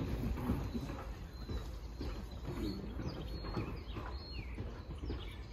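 Outdoor ambience: a steady low rumble with a few short bird chirps now and then.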